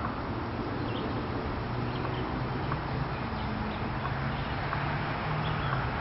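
Outdoor park ambience: a steady low hum of distant traffic, with a few faint, scattered bird chirps.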